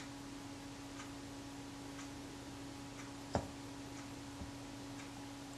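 Faint room tone with a steady low hum, broken by a few light ticks about a second apart and one sharper click about three and a half seconds in.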